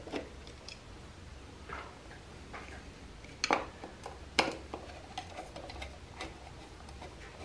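Screwdriver backing the screws out of an electric motor's wiring box cover: scattered small metal clicks and ticks, with two sharper clicks about a second apart midway.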